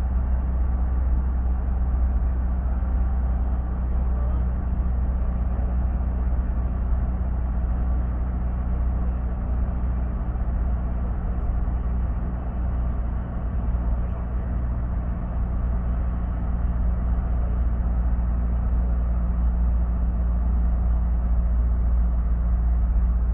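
Steady engine and road rumble inside a bus cabin as it drives through a highway tunnel, deep and unbroken, with a faint hum above it.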